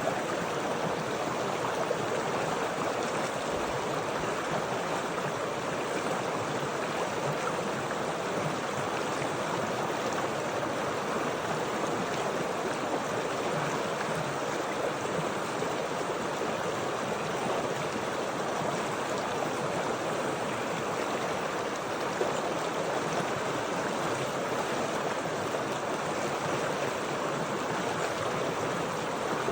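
Flowing stream water rushing steadily over rocks.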